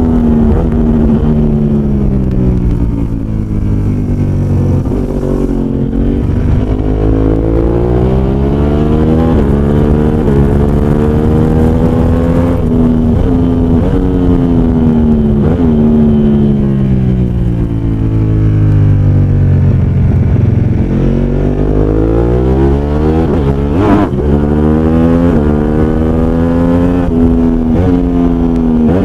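Racing motorcycle engine heard on board at track speed. Its pitch drops several times as it slows and climbs again as it accelerates, with one brief sharp knock about 24 seconds in.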